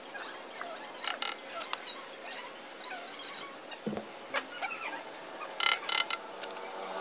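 Sporadic sharp scrapes and clicks with small squeaks between them, from hand tools working fresh cement; a cluster comes about a second in and another near the end.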